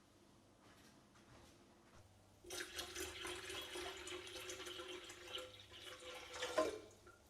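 Water running from a tap into a sink, turned on about two and a half seconds in and shut off about four seconds later.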